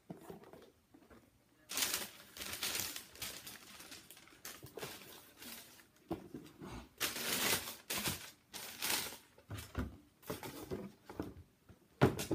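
Rustling and handling of a pair of leather high-top sneakers as they are packed back into a cardboard shoebox, in two long stretches. A sharp knock near the end as a shoe goes into the box.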